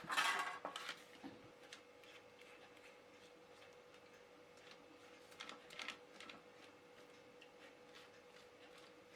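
Sausage rolls set down on a baking tray: a brief scraping clatter in the first second, then a few soft taps about halfway through. The rest is a quiet kitchen with a faint steady hum.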